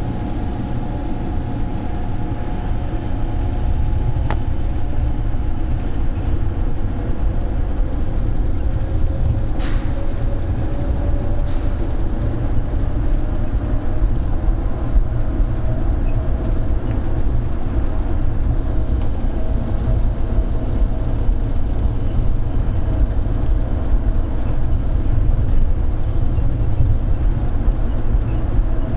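Rubber-tyred automated people-mover train running through its tunnel: a steady low rumble with a faint motor whine that rises slowly in pitch from about a third of the way in, and two brief hisses about ten and eleven and a half seconds in.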